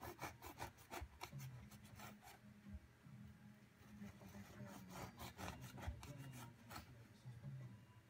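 Serrated bread knife sawing through a once-baked biscotti loaf: faint runs of quick rasping strokes, with short pauses between slices.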